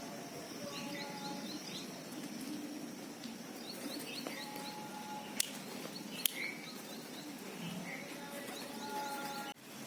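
Birds chirping, with a quick run of high chirps that comes back several times and short whistled notes, over a steady low hum of background noise. Two sharp clicks sound in the middle.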